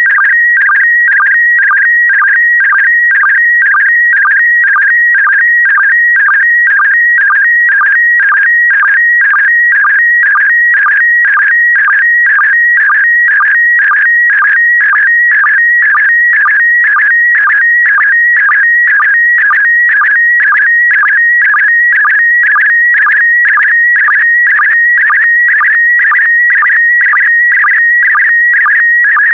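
PD120 slow-scan television (SSTV) image signal: a loud, continuous warbling electronic tone, broken about twice a second by a short, lower sync blip that marks the start of each new pair of picture lines.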